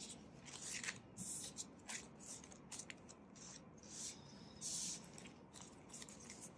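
Canadian polymer banknotes crinkling and rustling as a spread of bills is gathered into a stack and handled, in a string of short, crisp rustles.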